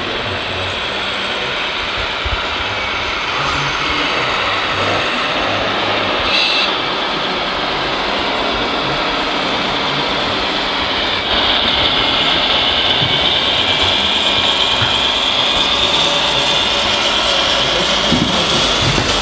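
Radio-controlled model tipper trucks driving on a sand track, making a steady mechanical running noise with a high whine. It gets louder from about eleven seconds in.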